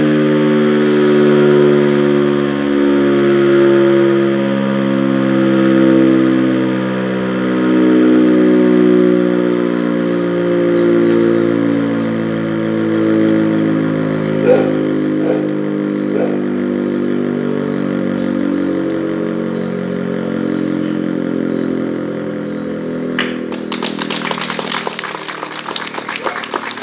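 Fire station siren sounding a loud, steady wail of several tones together that swells and fades about every two seconds, its pitch slowly sinking as it winds down. It is sounded in celebration here, not as an alarm. Applause breaks out about three seconds before the end, over the last of it.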